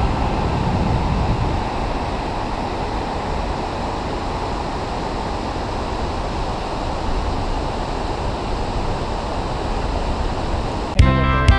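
Steady rush of a fast mountain stream tumbling over a rocky bed. Music comes in near the end.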